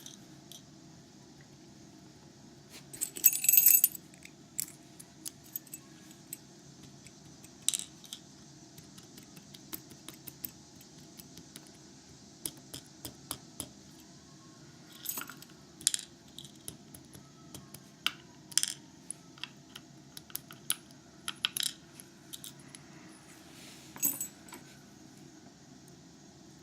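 Scattered light metallic clicks and clinks of a disassembled FAB 100L Euro lock cylinder's small parts and tools being handled, with a brief louder jingle about three seconds in. A faint steady hum sits underneath.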